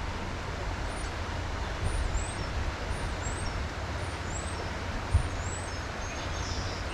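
Steady rush of a stream's flowing water with a low wind rumble on the microphone, while a small bird gives high, thin chirps about twice a second. A single brief bump about five seconds in.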